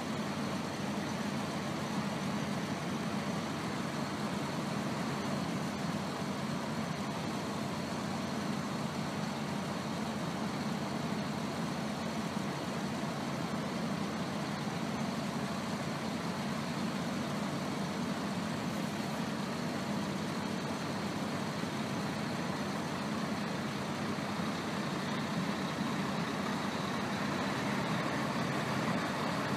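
Renault Magnum 440 dXi truck's diesel engine running slowly as the truck creeps forward, a steady low drone that grows slightly louder near the end as it draws closer.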